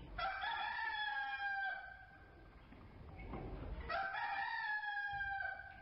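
Rooster crowing twice, each crow a long, slightly falling call of about a second and a half.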